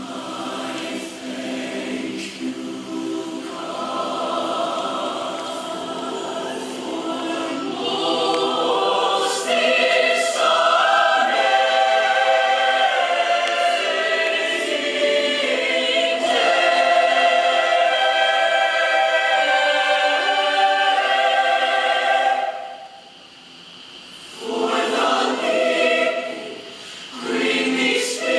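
High school show choir singing sustained chords in many voices, swelling louder about eight seconds in. Near the end the voices break off briefly, then come back in short loud chords.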